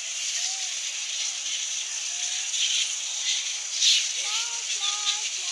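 A mass of flying foxes (fruit bats) overhead, their high chattering and squabbling screeches merging into a constant hissing din. Louder squeals stand out now and then, and a few short, clear calls come near the end.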